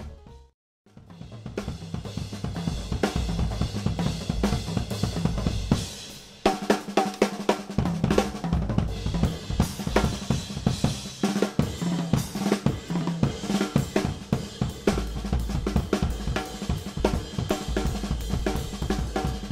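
Jazz drum kit played with sticks: snare, hi-hat, cymbals and bass drum. After a brief silence near the start the playing builds, then comes in harder and denser about six seconds in.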